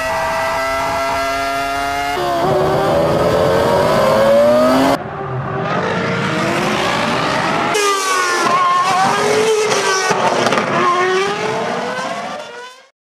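Formula 1 V10 and V8 racing engines accelerating out of corners, with the raspy, stuttering note of traction control cutting in to limit wheelspin. It opens as an onboard V10 holding a steady note, then rising in pitch. After two abrupt cuts comes a trackside V8 with a wavering, crackling rasp, fading out near the end.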